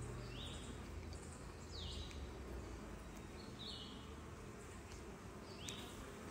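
Honeybees buzzing faintly and steadily around an open hive. Four short, high chirps sound a second or two apart.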